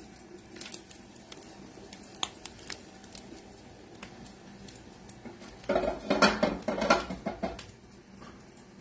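Kitchen utensil work at a stovetop: a spatula ticking and scraping in a frying pan of sage butter, with scattered light clicks. Past the middle comes a louder clatter of pan and cookware for about two seconds.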